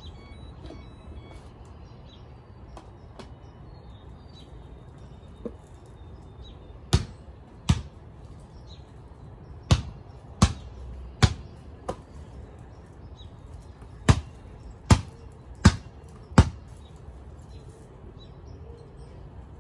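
Basketball bounced on a concrete driveway: about ten sharp bounces in short runs, each under a second apart, starting about seven seconds in. Faint bird chirps are heard in the first few seconds.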